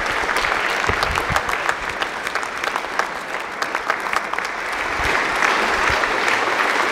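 A small audience applauding, a dense patter of claps in which individual claps can be picked out.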